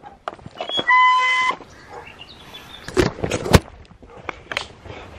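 A loud electronic beep, one steady tone held for just over half a second about a second in, followed by scattered knocks and scuffs, with two sharper thumps around three seconds in.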